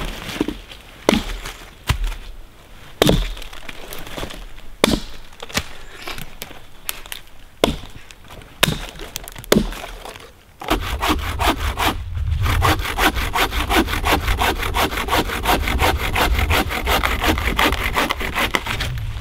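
Hand saw cutting through wood. It starts with slow, separate strokes about one a second, then a little past halfway it settles into a fast, steady run of strokes.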